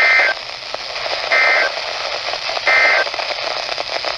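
Three short bursts of Emergency Alert System SAME data tones, the end-of-message signal of a NOAA Weather Radio warning, each about a third of a second long and a little over a second apart, over steady radio static hiss.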